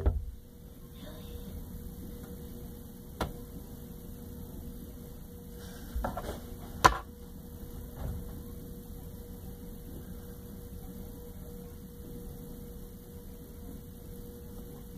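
Steady low electrical hum with a faint held tone, broken by a few short knocks, the loudest about seven seconds in.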